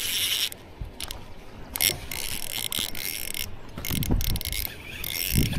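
Purelure SilverFeather baitcasting reel whirring in several bursts, its spool and gears spinning, with a few low thumps near the end.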